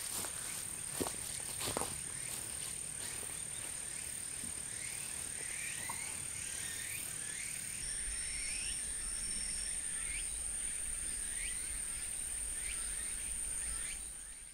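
Insects trilling in a steady high-pitched whine, with short rising chirping calls repeated irregularly over it. A few soft footsteps on grass come in the first two seconds, and the sound fades out at the end.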